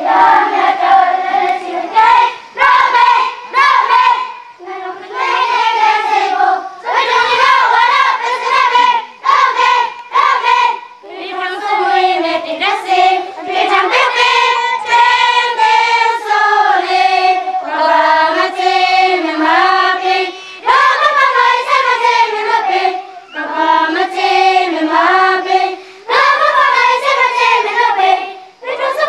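A group of schoolchildren singing together in unison, in phrases with short breaks between them.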